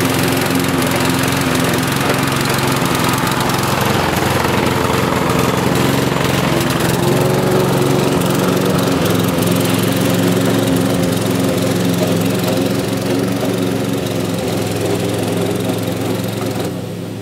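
Hayter Spirit 41 petrol lawnmower running at a steady speed while cutting grass, its engine no longer surging since the carburettor seal rings were replaced. It gets fainter near the end as the mower moves away.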